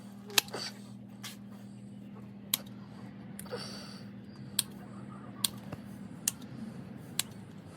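Goat hoof-trimming shears snipping a Nigerian Dwarf goat's hoof wall: six sharp clicks, about a second apart, over a low steady hum.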